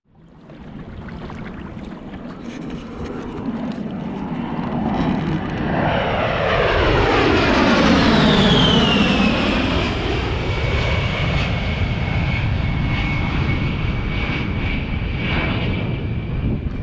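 A-10 Thunderbolt II jet flying low overhead. Its engine noise swells to its loudest about eight seconds in, and a high whine falls in pitch as it passes, then holds steady as the jet goes away over a deep rumble.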